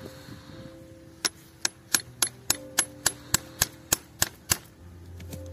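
About a dozen sharp metallic taps, roughly three a second, on a steel tube punch held against a young tree's stem to cut into the bark. Faint music underneath.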